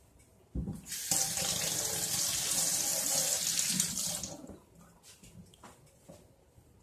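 A kitchen sink tap runs for about three and a half seconds and is then turned off. A knock comes just before the water starts, and a few faint clicks follow after it.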